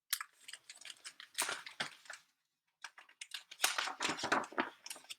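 Paper rustling and soft handling clicks in two bouts, as the page of a picture book is turned.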